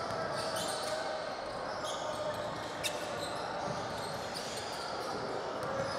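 Basketball game on a hardwood court: a ball bouncing and sneakers squeaking on the floor, over faint background chatter. One sharp knock about three seconds in is the loudest sound.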